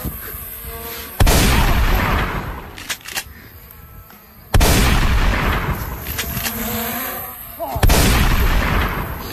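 Three loud gunshot blasts about three seconds apart, each trailing off over two to three seconds.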